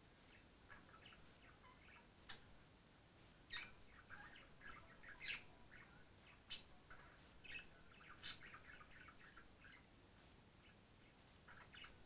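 Budgerigar chirping and chattering faintly in short, irregular high notes, a few sharper chirps standing out.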